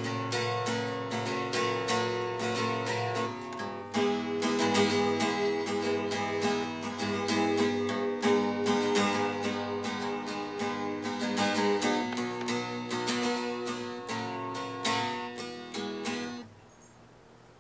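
Steel-string acoustic guitar played with a capo: picked and strummed chords in a continuous run, with heavier strums about every four seconds. The playing stops about a second before the end.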